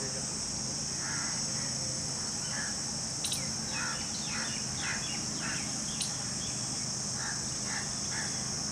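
Jungle babblers giving short, harsh calls, a loose string of them from about a second in until near the end, over a steady high-pitched insect drone.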